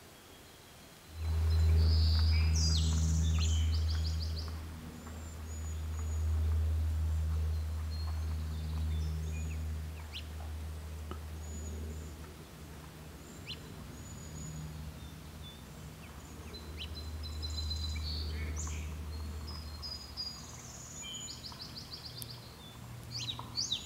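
A low, steady engine hum starts suddenly about a second in, wavers in loudness and fades out near the end. Small birds chirp and trill in the background, most around the start and again near the end.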